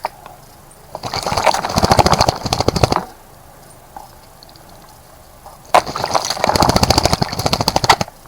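A bird bathing in a bird bath, fluttering its wings in the water in two rapid splashing bouts of about two seconds each, about five seconds apart.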